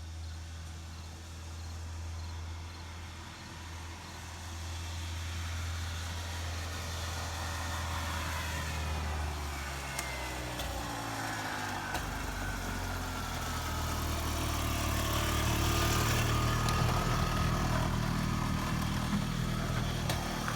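Small golf-cart engine running steadily. About halfway through its pitch glides down and the sound changes, then it grows louder toward the end.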